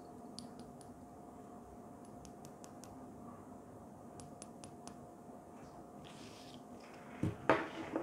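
Small clicks and ticks as a RODE VXLR minijack-to-XLR adapter is handled and turned in the fingers, then about seven seconds in a louder knock and rustle as the adapter and its plastic bag are put down on the table.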